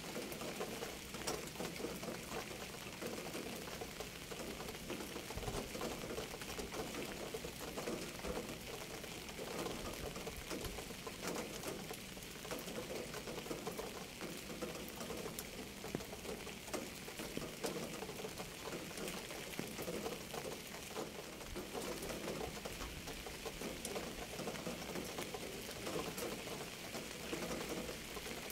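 Steady rain falling, with many small drops ticking and pattering on a surface.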